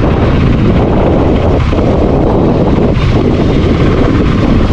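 Loud, steady wind rush over the microphone of a moving motorcycle, with the KTM Duke 200's engine and road noise mixed in beneath it.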